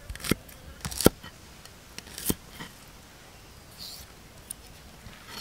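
Large knife chopping garlic cloves on a chopping board: about six sharp, uneven chops in the first three seconds, the loudest about a second and about two seconds in, then only a light tap or two.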